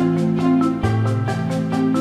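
Background instrumental music: a quick, even run of light notes, about eight a second, over a low held note that shifts about a second in.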